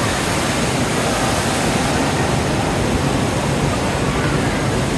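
Steady rushing noise of a moving boat, with water and wind running at an even level.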